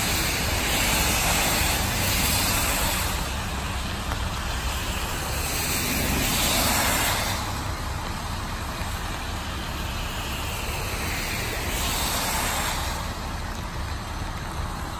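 2010 IC CE school bus's MaxxForce DT inline-six diesel running with a steady low rumble as the bus pulls out. A broad hiss of tyres on the wet road swells and fades about three times over it.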